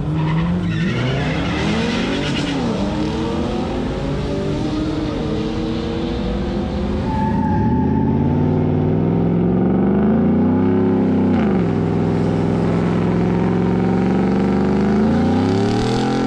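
Pickup truck's engine revved in repeated rising and falling sweeps, then held at steady high revs for a few seconds with tyre noise as the rear wheels spin in a burnout, with a final rev up and drop near the end.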